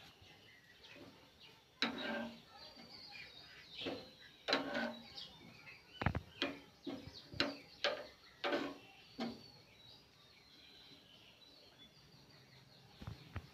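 A metal spoon stirring noodles in a small pan on a gas stove, knocking and scraping against the pan in a run of sharp clinks that dies down about two-thirds of the way through. Faint bird chirps in the background.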